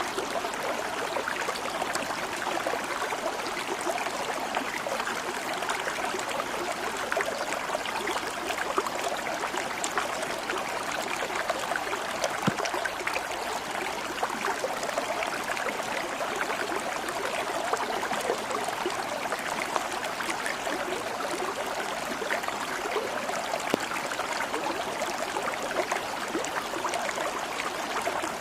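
Water flowing steadily in a small stream, an even babble with scattered small ticks and splashes.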